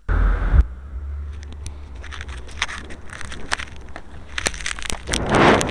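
Handling noise on a small camera's microphone as it is moved about: a loud bump at the start, then scattered clicks and rustling, with a louder rustling swell near the end, over a low steady rumble.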